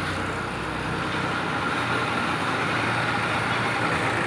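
Steady mechanical running noise with a low hum, growing slightly louder after about a second.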